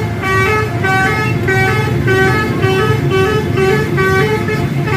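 A bus's telolet musical horn playing a quick melody of short notes that keep changing pitch, over the low, steady rumble of the bus's engine.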